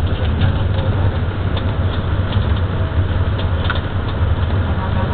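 Bus engine running with a steady low rumble, mixed with road noise and a few faint rattles.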